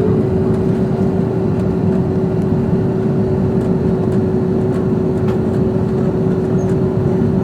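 Airbus A330-200 jet engine and airflow noise as heard inside the airliner's cabin: a loud, steady rush with a steady hum at one pitch.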